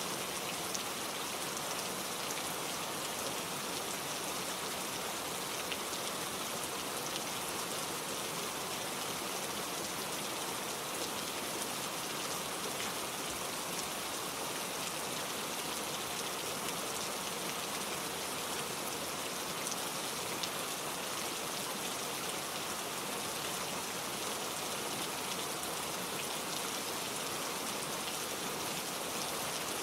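Steady rain falling, a dense even hiss with scattered drop ticks.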